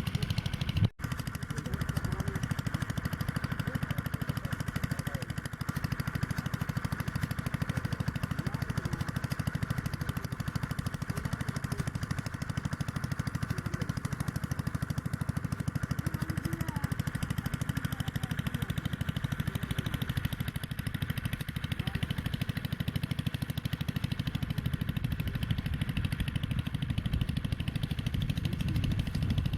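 A small engine running steadily at an even speed, with a brief dropout about a second in.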